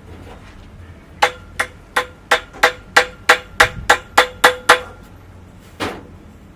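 Hammer blows on a building site: twelve ringing strikes at about three a second, quickening slightly, then a pause and one last blow.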